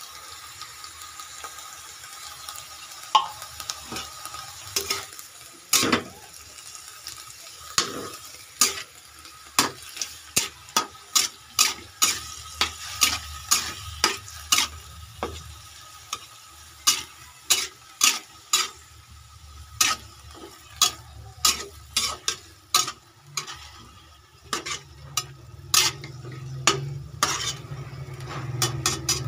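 Chopped pechay (bok choy) stir-frying in a wok: a steady sizzle of hot oil under many sharp, irregular clacks and scrapes of a spatula against the pan, at times several a second.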